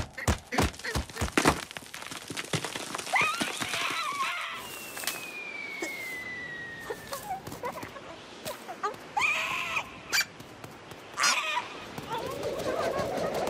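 Cartoon sound effects: a quick run of clicks and knocks, honking, squawking bird-like character calls, and a long falling whistle. A rush of noise builds near the end.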